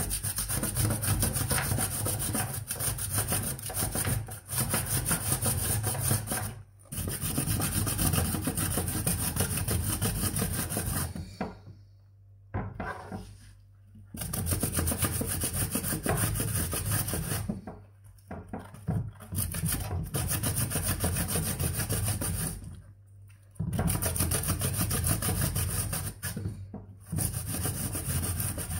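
A zucchini grated on a stainless steel box grater over a wooden cutting board: rapid rasping scrapes, stroke after stroke, in long runs broken by short pauses, the longest about twelve seconds in.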